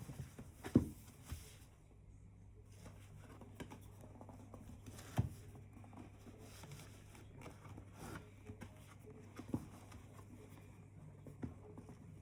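Handling noises during an unboxing: scattered clicks and taps with light rustling, the loudest click about a second in, over a low steady hum.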